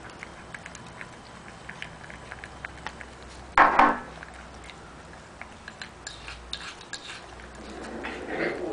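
Two puppies eating solid food from bowls: small, irregular clicks and licks of teeth and tongues against the bowls, with a short louder noise about three and a half seconds in and busier scraping near the end.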